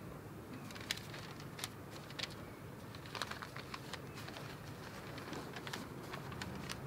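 Scattered light crackles and clicks of paper and small objects being handled at a wooden altar, a dozen or so irregular ticks over a faint steady low background.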